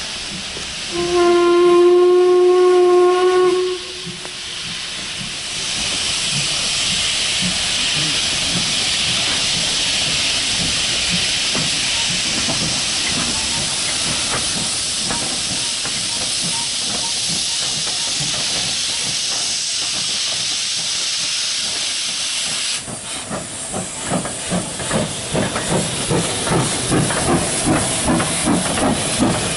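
A steam locomotive sounds one steady whistle note for about two and a half seconds, then steam hisses steadily. Some twenty seconds in, rhythmic exhaust beats begin, about two to three a second.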